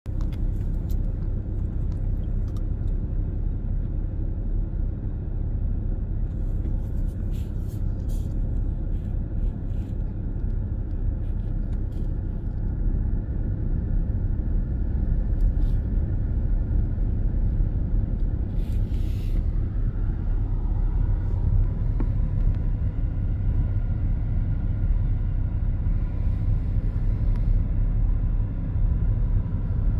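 Strong storm wind buffeting the microphone in a steady low rumble, with scattered sharp ticks in the middle stretch.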